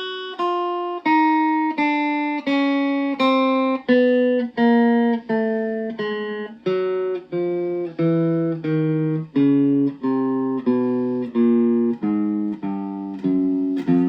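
Electric guitar through a Boss Katana Mini practice amp, playing the four-finger chromatic exercise in reverse (4-3-2-1 on each string) with alternate picking. Single notes ring one at a time, about one every 0.7 s. They step down in pitch across the strings, then climb back up near the end.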